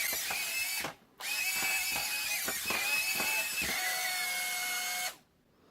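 Hot Wheels racing drone's small motors and propellers whining at three-times playback speed. The whine drops out briefly about a second in, resumes, and stops just before the end. The drone won't fly properly, which the owner puts down to a propeller blade fitted wrong.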